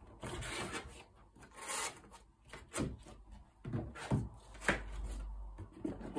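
Corrugated cardboard being handled: the box-like stand scraping and rubbing across the tabletop, then several short rustles and knocks as a cardboard side panel is folded up into place.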